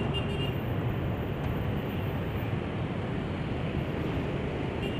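Steady low rumble of city road traffic mixed with a diesel-electric locomotive's engine running down the track.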